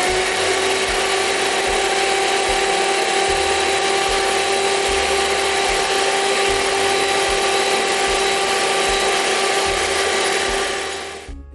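Electric hand mixer running steadily at high speed, its twin beaters whirring through eggs and sugar in a bowl, with a constant motor hum. The motor cuts off just before the end.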